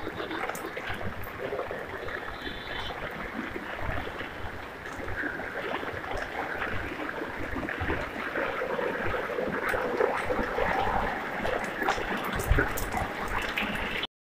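Steady rain falling on a wet paved street: an even hiss of rain and running water.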